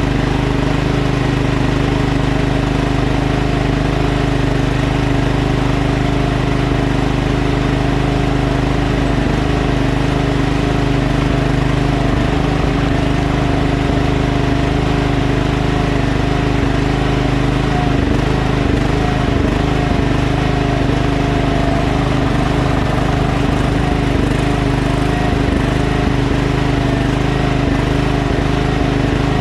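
Kohler Command engine on a Craftsman LT1000 lawn tractor running steadily, with its non-adjustable replacement carburetor tuned by way of the throttle bracket and spring.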